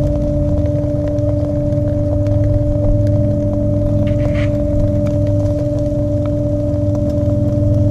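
Portable propane gas grill burners running at full flame: a steady low roar with a constant, unwavering hum.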